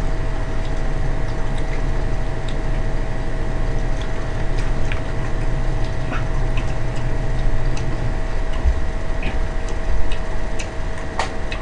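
Steady low hum with a faint constant whine, and scattered light clicks and taps throughout.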